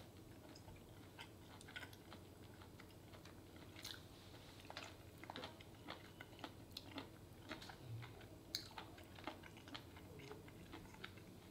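Faint, close-miked chewing of a mouthful of beef bulgogi, heard as many small wet mouth clicks that come more often from about halfway through.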